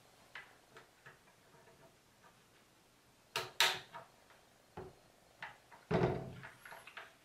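Small plastic retaining clip being fitted onto the outlet hose fitting of a water ionizer: light handling taps, then two sharp clicks a quarter second apart about three and a half seconds in, and a dull bump about six seconds in.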